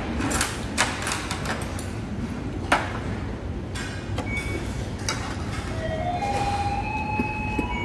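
Metal fork and chopsticks clinking against stoneware plates and bowls over a steady background clatter. From about six seconds in, a few steady held tones join, stepping up in pitch.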